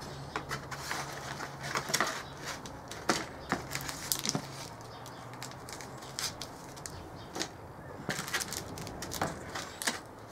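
Clear plastic bags of model-kit parts crinkling and rustling as they are picked up and moved about in a cardboard box, with light irregular clicks and taps of the parts against each other and the box.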